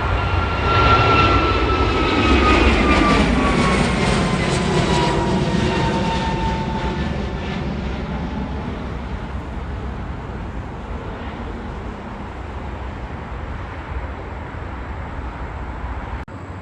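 Jet airliner's engines during a takeoff: a loud rush with a whine that falls in pitch over several seconds, loudest in the first few seconds and then slowly fading.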